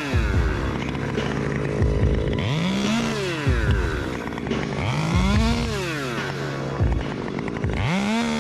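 Two-stroke chainsaw engine revved three times, about every three seconds. Each time it climbs quickly to full throttle, holds briefly and drops back to a steadier lower speed.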